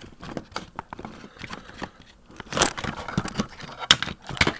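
A cordless drill being pulled apart by hand: its parts click, scrape and rattle in quick irregular handling noises, with a louder clattering stretch about halfway through and a sharp click near the end.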